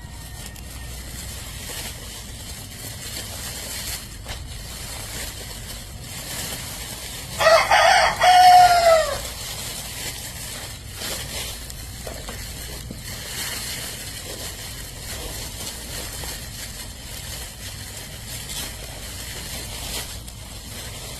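A rooster crows once, about seven seconds in, in one loud call of under two seconds that drops in pitch at the end. A faint steady outdoor hiss lies underneath.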